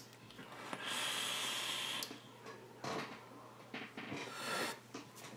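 A vaper drawing on an electronic cigarette: a steady airy hiss through the atomizer for about a second and a half that cuts off sharply, then softer breathy puffs as the vapour cloud is blown out.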